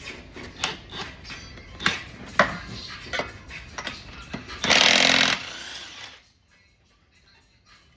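Clinks and knocks of tools and a socket being handled, then a larger impact wrench hammering in one short burst about five seconds in, on a lug nut torqued well past 90 foot-pounds.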